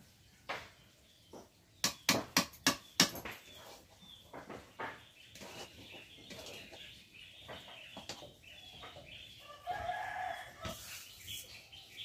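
A spatula scrapes and knocks against an iron kadai as semolina is stirred and roasted, with a run of five sharp knocks about two seconds in. A chicken calls once, briefly, near the end.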